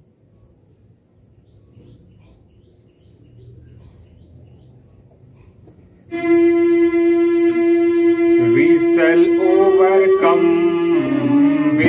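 Faint outdoor background with a few bird chirps. About six seconds in, an electronic keyboard starts a long held note, and a man starts singing a devotional song over it about two seconds later, with a few strokes on a dholak.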